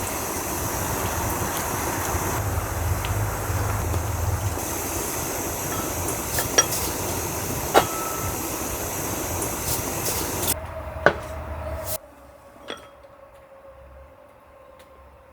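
Steady rushing noise with a low hum, with a few sharp clinks of cookware or glass. The rushing stops abruptly about twelve seconds in, leaving a faint steady tone and one more clink.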